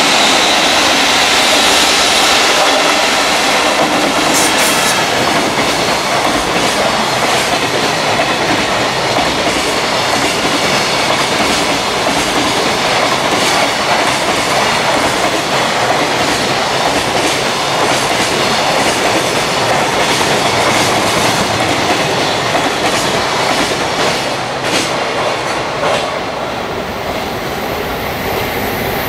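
Container freight train passing close at speed: a steady rush of wagons with wheels clattering over the rail joints. The sound eases a little near the end.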